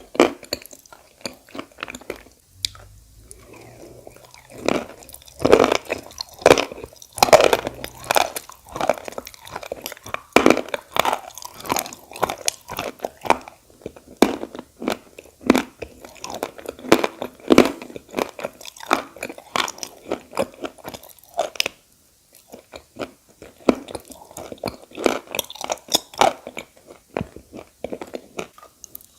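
Edible clay being bitten and chewed close to the microphone: many sharp crunches and crackles in irregular succession, with a short pause a little past the middle.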